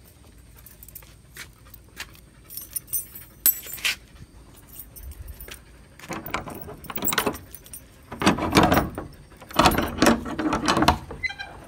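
Keys jangling and clinking against a padlock as it is unlocked, then several louder bouts of metal rattling and scraping from the door's slide bolt and hasp as it is worked open.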